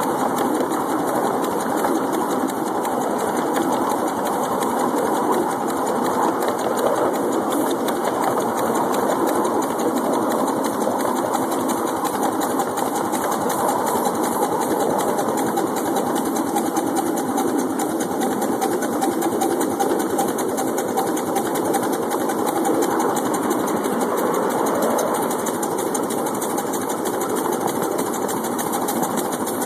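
Miniature ridable steam locomotive running steadily along its track, a continuous, fast mechanical chatter of exhaust and running gear.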